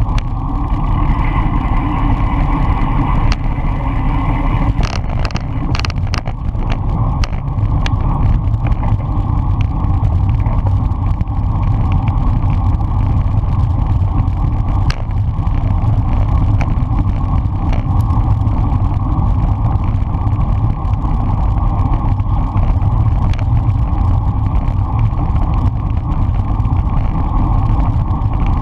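Steady rush of wind over a handlebar-mounted camera's microphone, with road-bike tyres running on asphalt, as the bike rolls along in a racing pack. A handful of sharp clicks come about five to six seconds in.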